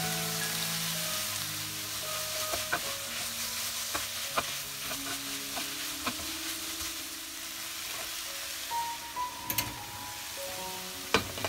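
Shredded pork and bamboo shoots sizzling in a hot wok as a wooden spatula stirs and scrapes through them, with many small clicks. Two sharp clacks come near the end.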